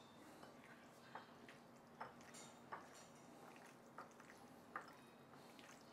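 Faint, soft squelches and light taps of a hand kneading cornstarch into marinated sliced pork in a ceramic bowl, about one a second over a near-silent background.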